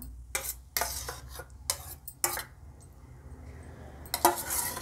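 Steel spoon clinking and scraping against stainless-steel bowls while scooping thick curd: a few short clinks, then a longer scrape near the end.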